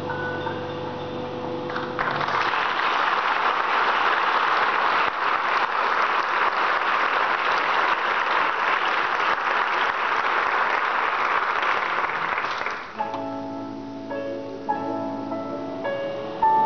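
The live band's last keyboard notes of a song, then audience applause for about eleven seconds. The applause stops suddenly as the band's keyboard starts playing soft sustained notes for the next number.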